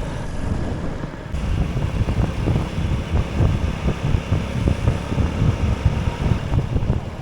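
A vehicle driving along a road: low engine and road rumble with uneven low thuds, heavier from about a second in.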